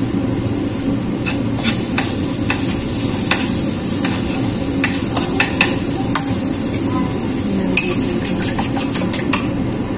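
Steady sizzling from a hot frying pan as butter goes in, with irregular sharp clinks and scrapes of a utensil against the pan and a dish.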